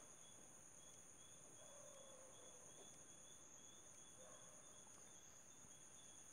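Near silence: a faint night ambience of crickets, with steady high trilling and a soft, evenly pulsing chirp.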